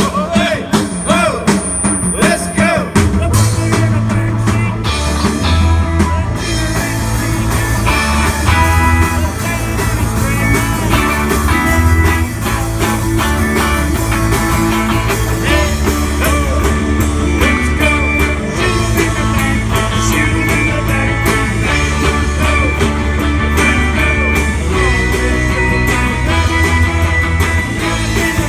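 Live punk-style rock band playing loud: electric guitars, bass guitar and drum kit, with a voice singing in the first few seconds. About three seconds in, a heavy, stepping bass line comes in under the guitars and drums.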